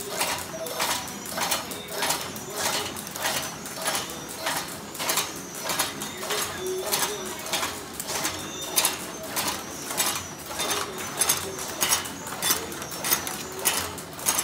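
PFM Hurricane flow-wrapping machine with an Etipack Whizzy labeller running in a steady cycle: a rhythmic mechanical clatter of clicks, repeating a little under twice a second.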